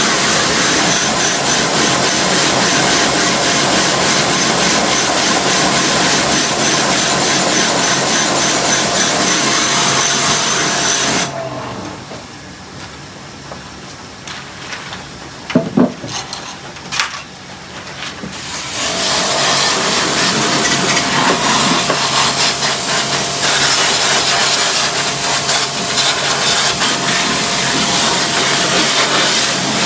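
Electric pressure washer running with a steady motor hum under a loud hiss of spray. It cuts off about 11 seconds in, a few knocks are heard in the gap, and it starts again about 7 seconds later.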